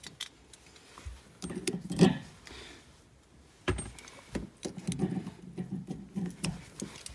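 Light metallic clinks and scraping as loose steel parts are handled at the exposed upper shock absorber stud, with scattered sharp clicks and some rustling handling noise.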